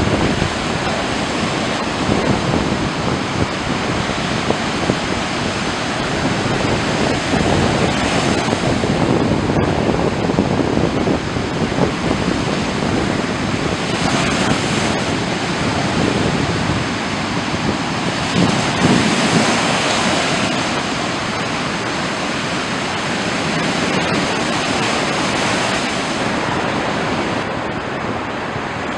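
Sea surf: waves breaking and washing up the shore in a continuous rush that swells and eases every few seconds.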